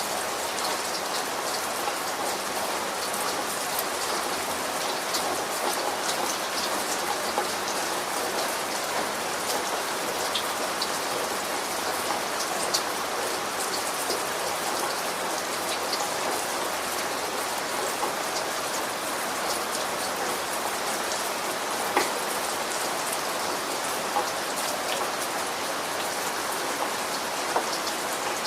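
Steady rain falling, an even hiss with many individual drops pattering and ticking on a surface, a few of them louder and sharper.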